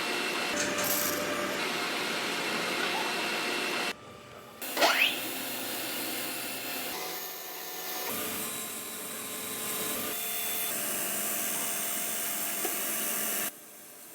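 A workshop power tool running with a steady, noisy sound, heard in several abruptly cut segments. A brief loud rising whine comes about five seconds in.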